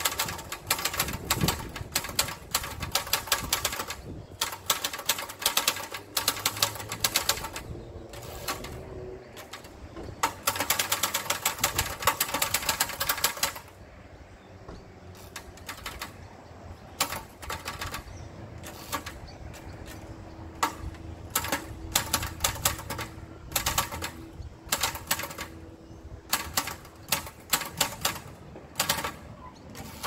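1935 Imperial 'The Good Companion' No. 1 manual portable typewriter being typed on: runs of rapid key strikes in bursts, fastest about ten seconds in. After the middle the strokes thin out into sparser single clacks.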